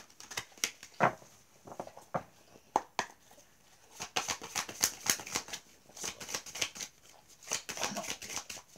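A deck of divination cards being shuffled by hand: irregular crisp card clicks and flutters, coming in quick clusters about four seconds in and again near the end.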